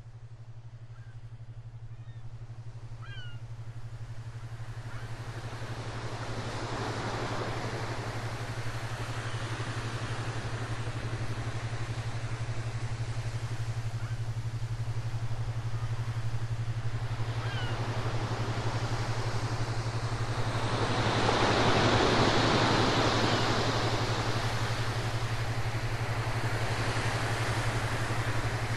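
Sea waves washing in, the surf growing from quiet over the first several seconds and swelling to its loudest about three-quarters of the way through, over a steady low hum.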